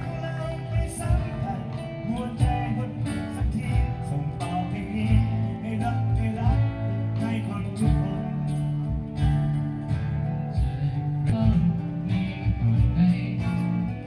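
Live band playing, with guitars strummed over bass and a drum beat.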